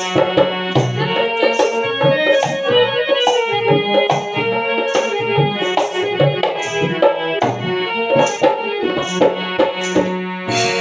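Instrumental interlude of an Indian song: tabla playing a steady rhythm under a melody line, without singing.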